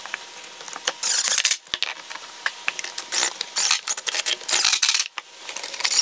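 Small metal screws and a cordless drill being handled: irregular clicking, clattering and brief scraping noises as screws are set on the bit and fitted to the hinges.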